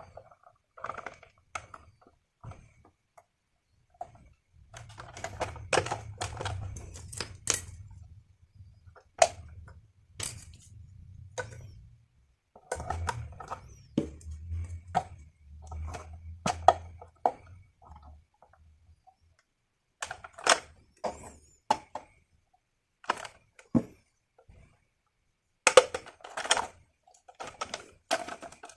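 Toys and their packaging being handled: irregular sharp clicks, taps and knocks. A low hum runs underneath in two long stretches in the first two-thirds.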